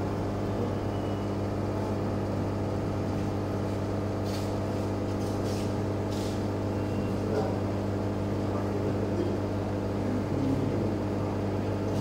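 Steady electric hum from an aquarium air pump driving a bubbler, with a low buzz and several fixed tones and a few faint hisses about four to six seconds in.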